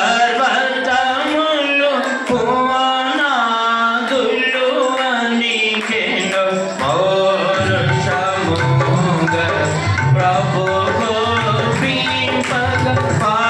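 A man singing a song, with drum accompaniment joining in about halfway through.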